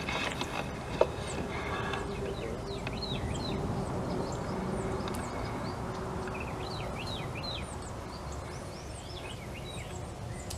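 Small birds calling: many short, quick chirps, some in rapid runs, over a steady low background hiss. A brief rustle and a single click come in the first two seconds.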